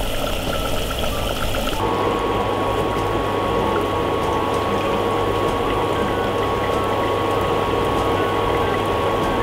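Battered corn fritters sizzling in hot oil in a deep-fry pot: a steady bubbling hiss. Its bright top end drops away suddenly about two seconds in, leaving a duller sizzle.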